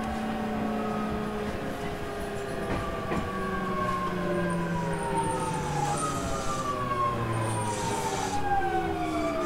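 JR 209 series 3000 motor car's GTO-thyristor VVVF inverter and traction motors whining in several tones that slide steadily downward, with a low hum dropping in steps, as the train slows on its arrival into a station.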